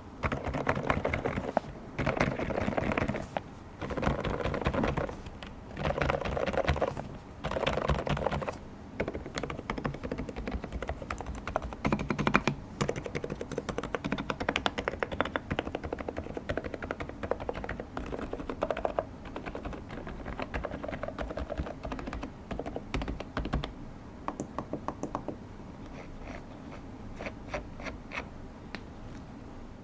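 Typing on an Epomaker TH108 V2 Pro, a full-sized mechanical keyboard with silent switches. Five short bursts of rapid keystrokes come in the first nine seconds, then steady continuous typing, thinning to scattered keystrokes near the end.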